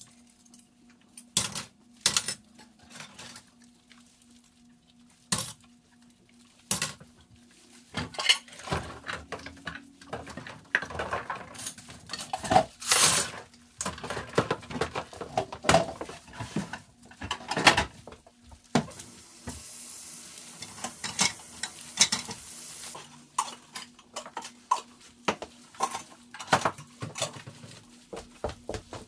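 Dishes and cutlery clattering and clinking as they are handled in a kitchen, in irregular knocks throughout. A few seconds of hiss come in past the middle, and a faint steady hum runs underneath.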